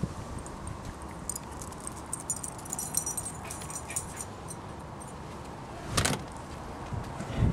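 Small metal pieces jingling lightly, on and off through the first few seconds, with one short, loud sound about six seconds in.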